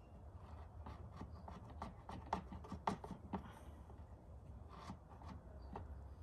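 Plastic bottle of thick oil stabilizer being squeezed and handled over a funnel, giving faint irregular crinkling clicks and rubs over a low steady hum.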